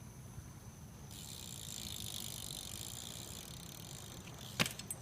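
BMX bike coasting, its rear hub freewheel ratchet buzzing for a couple of seconds. A sharp clack comes near the end.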